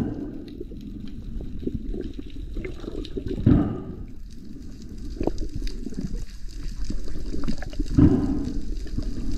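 Water noise heard underwater through an action camera's housing: a steady low rush, with two louder surges about 3.5 seconds and 8 seconds in, and small scattered ticks.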